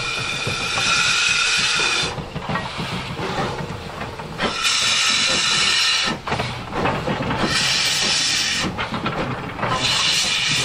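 Ivatt Class 2MT 2-6-2T steam tank locomotive hissing steam in repeated loud blasts of a second or two, with quieter gaps between them as it moves slowly.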